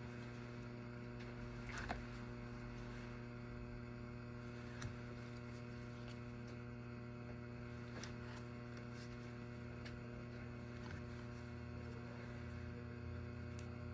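Steady low electrical hum, with a few faint clicks about 2 and 5 seconds in.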